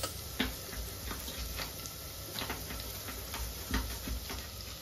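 Kitchen knife chopping green beans on a wooden cutting board: light, sharp taps, about two or three a second.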